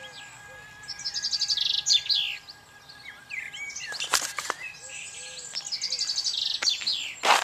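A songbird singing two spells of rapid, high trilled song, about a second in and again around five seconds in. Sharp knocks break in around four seconds and just before the end, the last one the loudest sound.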